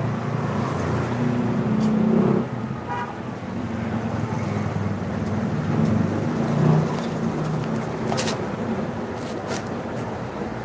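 Low, steady rumble of a motor vehicle engine running, with a brief higher tone about three seconds in and a few sharp clicks near the end.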